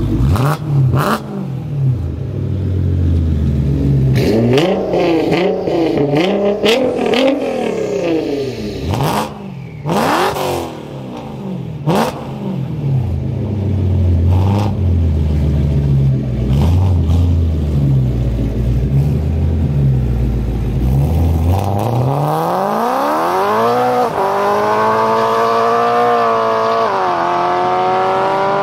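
Modified BMW E92 M3 V8 and Nissan R35 GT-R twin-turbo V6, both with decatted, loud aftermarket exhausts, revving in repeated blips while standing still, with sharp exhaust cracks between some blips. About 22 s in the M3 accelerates hard away on the wet road: one long climb in engine pitch, broken by upshifts about two and five seconds later.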